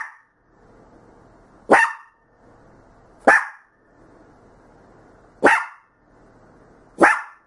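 A dog barking single sharp barks, five of them, spaced one and a half to two seconds apart. It is alarm barking, set off by knocking in the next room.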